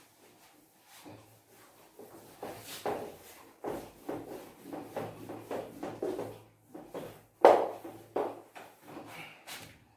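Whiteboard being wiped with an eraser: a series of short rubbing strokes across the board, one stroke much louder about seven and a half seconds in.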